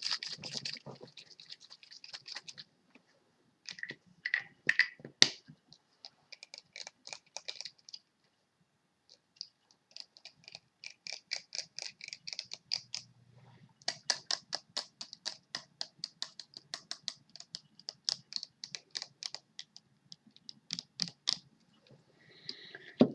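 Fingers typing on a phone, a quick run of light taps and clicks coming several a second in bursts, with short pauses between the runs.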